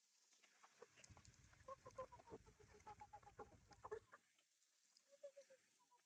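Hens clucking faintly in runs of short notes, with a low rumble underneath from about one to four seconds in.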